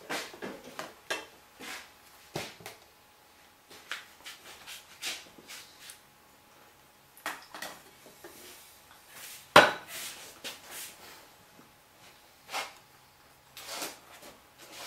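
Scattered clicks, clinks and knocks from handling a wooden silk-screen frame and printing tools, with one sharp knock, the loudest, about ten seconds in.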